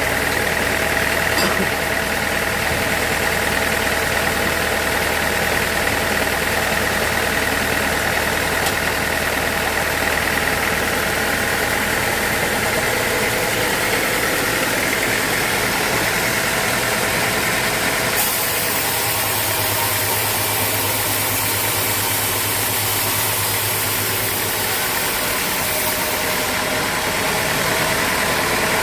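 Sawmill machinery running steadily: a continuous engine hum with a steady whine over it, the tone shifting about halfway through.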